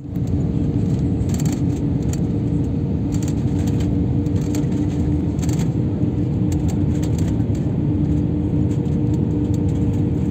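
Airliner cabin noise heard from a window seat: a steady roar of the jet engines and rushing air with a constant droning hum through it. A few light rattles come and go.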